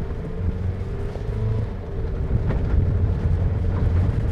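Toyota Rush GR Sport driving over a rough, potholed gravel road: a dense low rumble of engine, tyres and suspension, growing louder as it picks up speed.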